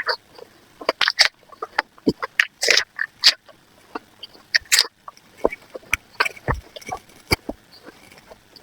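An apple being bitten and chewed: an irregular run of crisp crunches and clicks, several a second.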